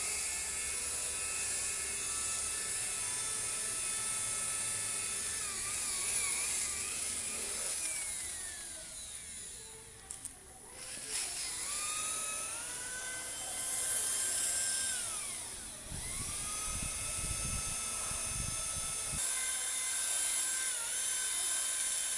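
Electric car polisher with a buffing pad running on freshly painted bumper paint, its motor whining and changing pitch with load as it polishes out the sanding scratches. The whine dips about ten seconds in, then winds back up.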